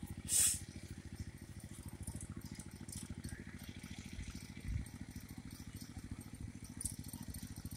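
A small engine running steadily in a fast, even low chug, with a brief rustle about half a second in and a soft thump near the middle.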